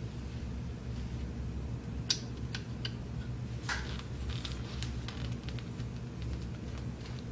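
Small clicks and taps of the plastic shutter parts of a Gakkenflex kit camera being handled and fitted together, the sharpest about two seconds in and again near four seconds, over a steady low hum.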